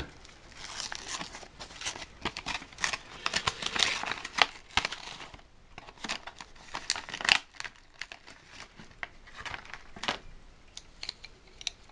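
Card-and-plastic packaging of a set of wooden coloured pencils being peeled open and handled, crinkling and rustling most busily in the first five seconds. After that come sparser clicks and taps as the pencils are pulled out and knock together.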